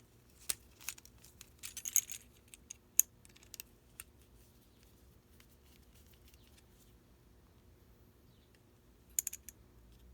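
Light metallic clicks and scrapes of a Phillips screwdriver tip seating in and turning the terminal screws of an electrical outlet. They come in scattered clusters over the first few seconds, then there is a quiet stretch, then another quick cluster near the end.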